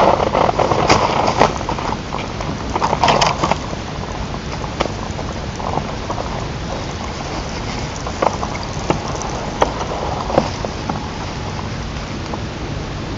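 A steady outdoor hiss, with rustling and scattered sharp clicks that are busiest in the first four seconds and grow sparser after.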